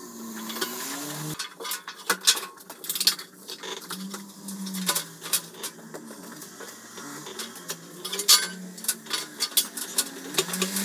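Irregular metallic clinks and knocks of metal parts and tools being handled against the sheet-metal back of a tumble dryer, with several sharp louder knocks scattered through.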